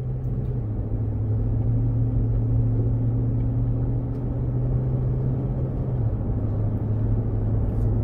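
2019 GMC Yukon's engine and road noise heard from inside the cabin while driving, a steady low drone that steps slightly lower in pitch about six seconds in. The engine is logging intermittent misfires at light throttle, which the owner suspects come from the fuel injectors or fuel pressure.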